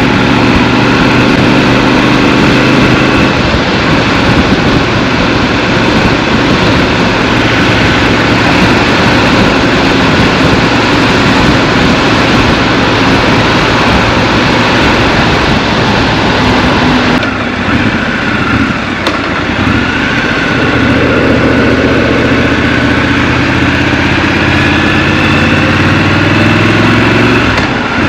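Scrambler motorcycle engine heard from the rider's seat: idling at first, then pulling away and riding with road and wind noise, easing off about two-thirds through and settling back to a steady idle near the end.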